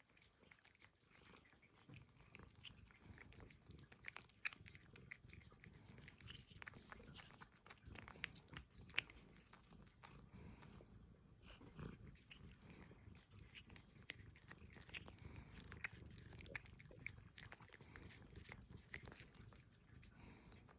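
Cat eating Churu, a lickable puree treat: faint, quick, irregular wet licking and smacking clicks.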